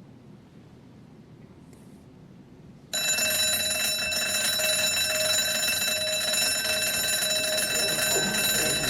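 Classroom school bell ringing the end of class, starting suddenly about three seconds in and holding one steady, continuous ring. Before it there is only faint room tone.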